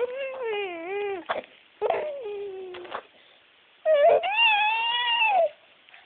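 Baby making three drawn-out, whiny vocal noises, the last one higher-pitched and loudest, with short wet mouth clicks between them from slobbering.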